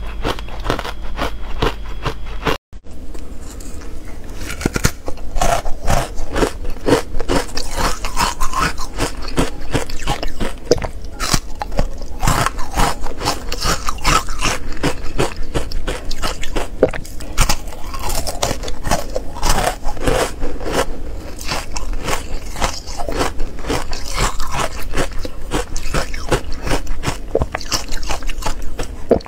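Close-up crunching and chewing of ice coated in matcha powder: dense, irregular cracking bites, with a brief break about two and a half seconds in.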